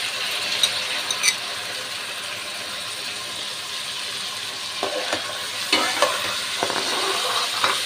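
Raw cauliflower florets and potato pieces sizzling in hot oil in a metal pan, just added. Around five to six seconds in, a metal spatula scrapes and knocks against the pan several times as the vegetables are stirred.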